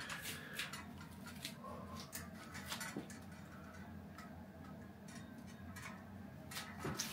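Faint, scattered light clicks and taps from a white metal pet gate being unlatched and swung open, over quiet room tone.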